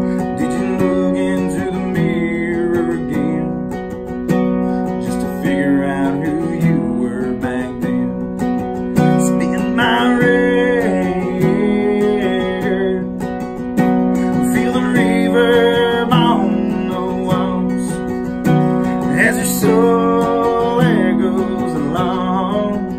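Live acoustic country ballad: two acoustic guitars strumming chords, with a harmonica coming in partway through and playing bending melodic lines over them.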